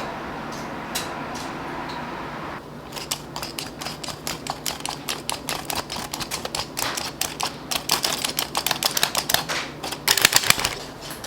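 A steady hiss, then from a couple of seconds in a fast, uneven run of light clicks or taps, several a second, ending in a short rush of noise near the end.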